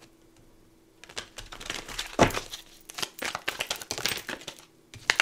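A deck of tarot cards being shuffled by hand: after a second of quiet, a rapid run of card clicks and rustles, with a short break near the end.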